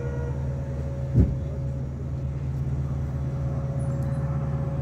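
Steady low rumble of a stationary diesel-hauled train, the WDP4D diesel locomotive idling, with a weak steady hum over it. One short, loud thump comes about a second in.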